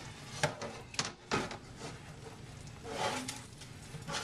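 A few sharp knocks and scrapes as hands and a stiff plastic sheet bump against a stainless steel sink while a wet clump of harvested algae is gathered up.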